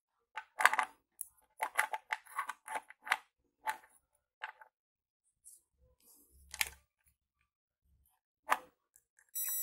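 Test probes and a power transistor being handled, a string of short clicks and rustles as the probe tips are set on its pins. Near the end a digital multimeter's continuity buzzer starts a steady high beep: the transistor's centre pin and its metal heat-sink tab are connected.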